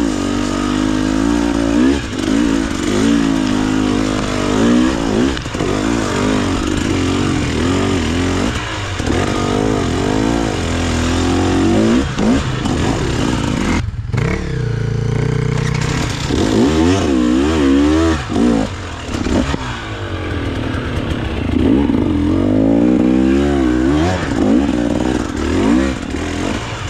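KTM 300 TBI single-cylinder two-stroke enduro engine revving up and down under load on a steep dirt climb, its pitch rising and falling with the throttle. About fourteen seconds in it drops out for a moment, then runs lower and steadier for a couple of seconds before the revving picks up again.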